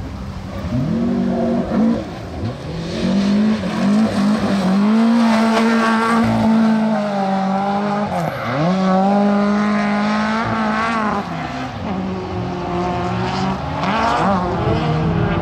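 Rally car engine running hard. Its pitch drops and climbs again several times, with a deep dip about eight seconds in, as the driver lifts off, changes gear and accelerates out of the corners.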